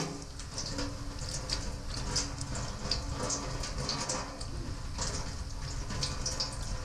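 Water running from a tap over hands being rubbed and washed, splashing into a stainless steel sink with scattered spatters and drips.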